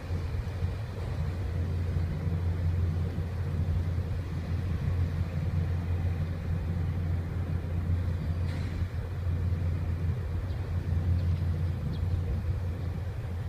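Steady low engine rumble from the cruise ship Concerto as it manoeuvres slowly alongside the quay.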